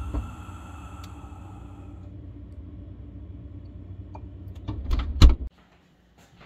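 Low steady hum from inside an open refrigerator while bottles and a can are handled on its shelves, then a few knocks and a loud thud about five seconds in, after which the hum cuts off suddenly.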